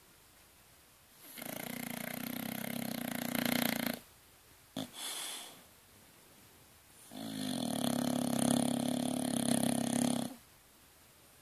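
A sleeping bulldog snoring: two long, buzzing snores of about three seconds each, the first growing louder near its end, with a short softer breath sound between them.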